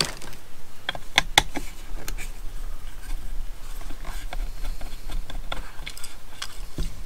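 Small screwdriver working the battery-door screw on a plastic voice-changer box, with light clicks and handling of the plastic case. A few sharper clicks come close together about a second in.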